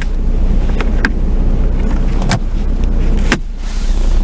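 Plastic lid of a car's centre-console storage box clicking as it is handled: several sharp clicks, the loudest two in the second half, over a steady low rumble.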